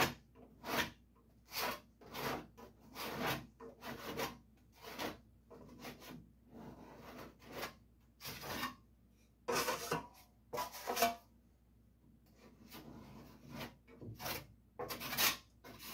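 Wide trowel scraping body filler across a sanded steel truck box side in repeated short strokes, with brief pauses between runs.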